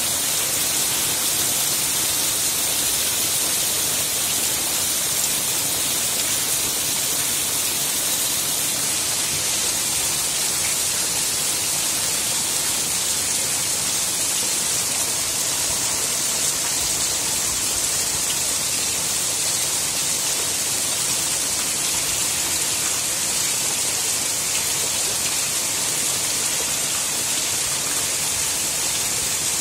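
Heavy monsoon rain pouring steadily onto a paved courtyard, an even, dense hiss that grows a little stronger about nine seconds in.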